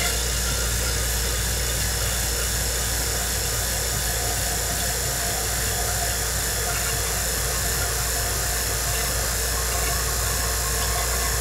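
Electric vacuum pump running steadily, a low hum under a hiss, while it pumps the air out of a bell jar.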